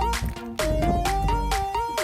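Electronic background music with a steady beat and a stepping synth melody.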